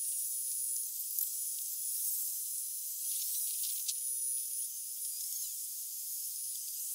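Steady high-pitched hiss, with a few faint short chirps and ticks a little past the middle.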